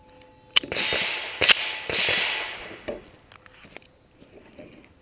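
Pistol shots on a steel-target course: two sharp shots about half a second and a second and a half in, the second the louder, then a few fainter cracks. A rushing hiss fills the first few seconds.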